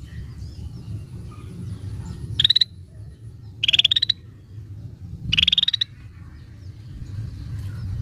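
Scaly-breasted bulbul giving three short, rattling calls, each rising in pitch, about a second and a half apart, over a steady low rumble.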